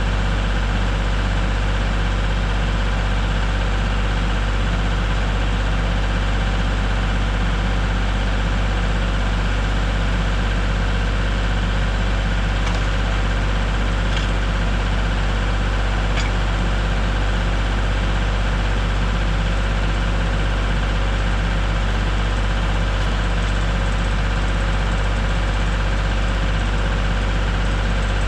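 Small gas engine of a Norwood MX34 portable bandsaw mill running at a steady speed, with a constant low hum and no change in load.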